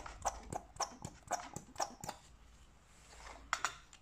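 Hand-held vacuum brake bleeder pump being worked, a quick even clicking of pump strokes about four a second for roughly two seconds, then two more strokes near the end. The strokes pull vacuum to draw brake fluid and air out through the caliper bleed nipples.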